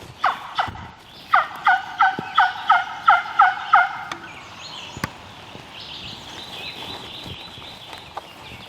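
Wild turkey yelping: two short notes, then a run of about eight evenly spaced yelps, roughly three a second, each dropping in pitch, ending about four seconds in.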